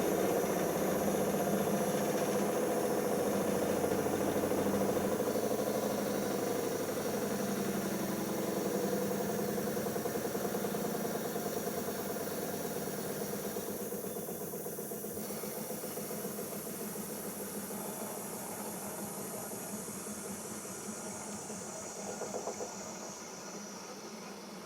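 Siemens iQ 1430 washing machine drum spinning down after the spin that follows the first rinse. A rapid, even rattle slows and gets steadily quieter, and a high motor whine falls in pitch near the end.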